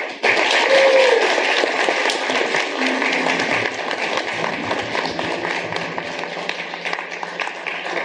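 Wedding guests applauding, starting all at once and loudest about a second in, then carrying on steadily.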